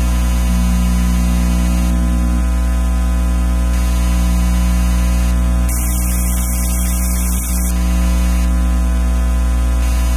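Radio frequency interference from electronic devices, picked up by an RFI probe: a loud, steady electrical hum and buzz made of many fixed tones. Its lower tones shift a couple of times in the first few seconds, and a band of hiss comes in about six seconds in and lasts about two seconds.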